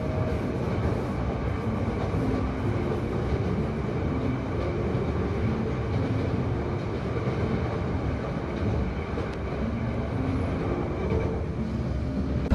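Passenger train running along the track: a steady rumble of wheels and car.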